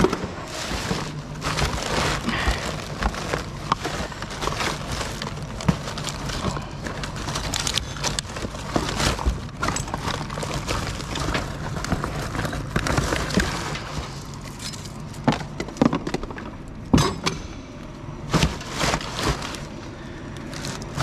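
Rummaging through a steel drum of rubbish: plastic bags and cardboard packaging rustling and crinkling, with frequent sharp knocks and clatters as items are shifted against the metal, over a steady low hum.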